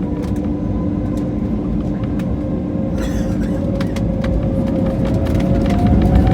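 Jet airliner's engines and cabin noise heard from inside the cabin: a steady low rumble with a few humming tones and scattered light clicks and rattles. About five seconds in a tone starts to rise and the noise grows louder, as the engines spool up.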